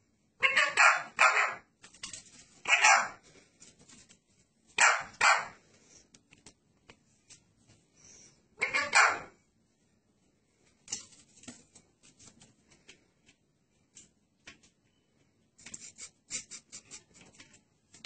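Blue Indian ringneck parakeet giving short, loud, harsh calls in quick clusters: three near the start, one about three seconds in, two around five seconds and two around nine seconds. Faint ticks and taps fill the gaps and most of the second half.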